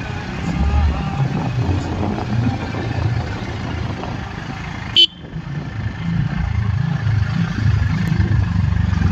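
Low, rumbling road-vehicle noise, with one short, sharp, loud sound about five seconds in.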